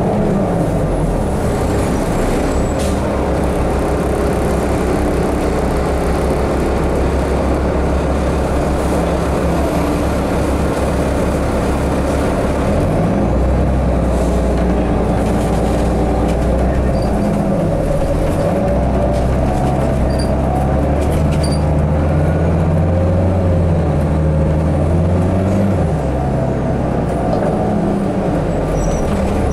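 Inside a 2006 New Flyer D40i diesel city bus under way: a loud, low drone of engine and drivetrain. Its pitch falls at first, then climbs and drops several times as the bus speeds up and slows in traffic.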